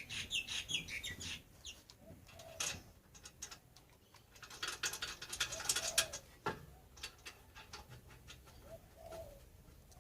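Bursts of metallic clinking and rattling from hand tools and brake parts being handled, with a few short cooing calls, like a dove's, in the background.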